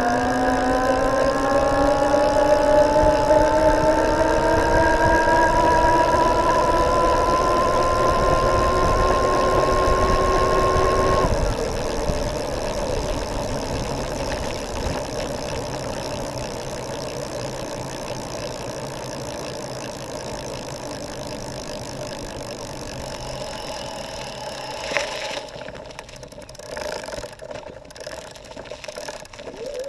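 Geared electric-bike hub motor (36 V, 350 W, planetary gear reduction) whining under power, the whine rising in pitch as the bike speeds up, then cutting off about eleven seconds in. This is the hum the owner cannot place, either the planetary gearbox or the motor itself resonating. After the cut-off there is a steady rush with one sharp click.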